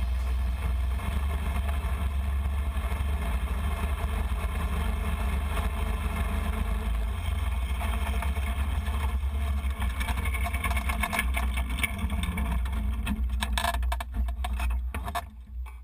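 Go-kart engine running steadily with a heavy low rumble as the kart drives through snow, with a few knocks and rustles near the end before the sound fades out.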